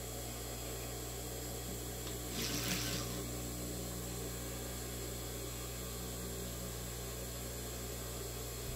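Steady low hum and hiss with no stitching rhythm, and a brief rustle of fabric being handled about two and a half seconds in.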